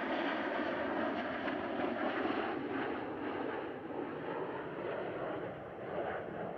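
Jet noise from NF-5 fighters flying past in formation: their turbojets make a steady rushing noise that slowly fades as they draw away.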